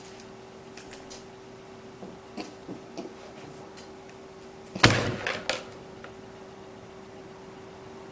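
A sudden loud thump with a short clatter of rustling after it, about five seconds in, as a person slumps forward onto a desk; a few light knocks and clothing rustles come before it. A faint steady hum runs underneath.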